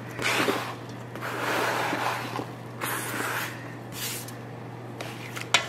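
Chopped pear pieces sliding and tumbling off a flexible plastic cutting board into a stainless steel mixing bowl of oat mixture, in a few soft scraping swishes, with a sharp click near the end. A low steady hum runs underneath.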